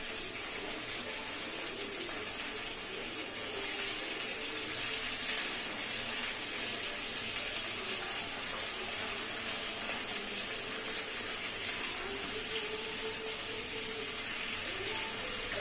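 Pieces of black pomfret sizzling steadily as they fry in mustard oil in a nonstick kadai.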